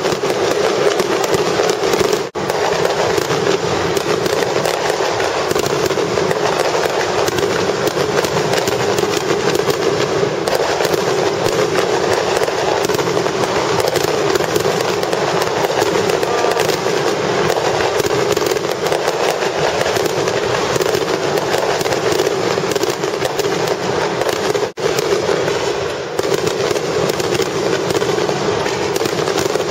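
Fireworks display: a dense, continuous barrage of bursts and crackling, with two brief dropouts.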